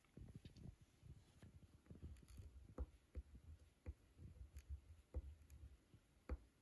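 Faint ballpoint pen writing a word on paper: soft, irregular low knocks and light ticks as the pen strokes and taps the sheet.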